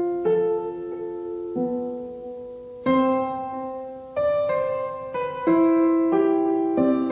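Background piano music: slow chords struck about every second or so, each left to ring and fade before the next.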